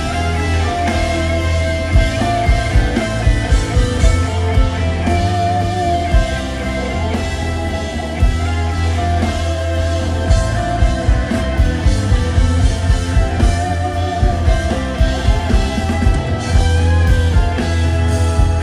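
Live rock band playing: electric guitars over bass and a drum kit keeping a steady beat, with no clear vocal line.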